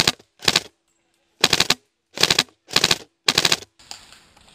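Airsoft gun firing five short full-auto bursts, each about a third of a second of rapid-fire clicking, separated by brief gaps.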